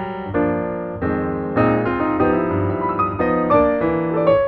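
Background piano music: a melody of short notes over sustained chords.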